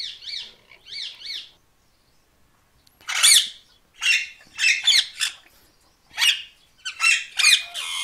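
Caged parakeets calling: a quick run of chirps, a short pause, then about six loud, harsh squawks.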